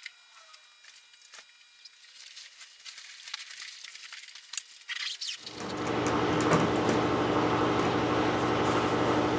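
Faint rustling of fabric and light clicks as a cover is fitted over a harp, then about five and a half seconds in a steady, loud vehicle engine idling hum begins.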